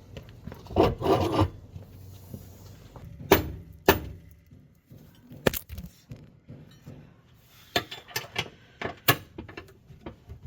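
Hand tools working on the hitch mounting bolts: irregular sharp metallic clicks and knocks, with a short scraping rattle about a second in and a cluster of clicks near the end.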